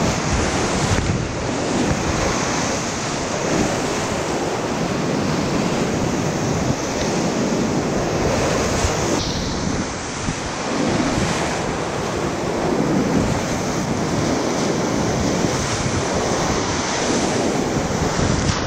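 Whitewater rapids rushing loudly around a kayak, heard close up from the boat as it runs the rapid: a steady, dense water noise.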